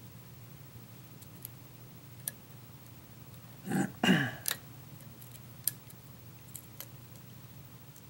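Faint, scattered metallic clicks of a lock pick and tension wrench working the pins of a pin-tumbler lock. About four seconds in, a short low vocal sound falling in pitch, louder than the clicks.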